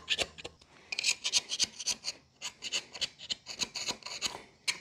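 Hand scraper scraping old exhaust gasket material off the exhaust-port faces of a 360 Magnum V8's cylinder head, in quick repeated strokes of about five a second with a short pause under a second in.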